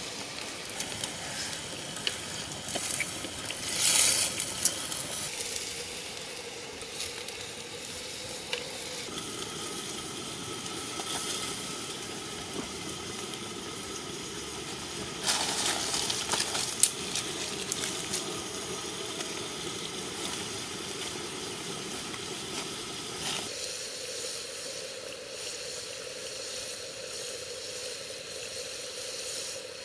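A black pot of intestines in liquid bubbling over a wood fire: a steady hiss, with a stick stirring and scraping in the pot now and then, loudest about four seconds in and again around fifteen to seventeen seconds.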